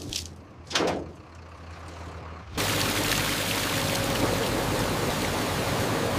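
Steady rushing hiss of water spraying over grapes on a stainless steel washing conveyor, starting suddenly about two and a half seconds in. Before it there are quieter scattered sounds, with one short louder noise about a second in.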